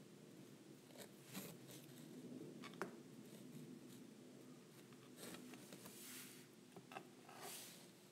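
Faint handling noises of silicone orchid veiner pieces being picked up, rubbed together and set down on a board: soft brushing rustles with a sharp little click about three seconds in, over a faint steady hum.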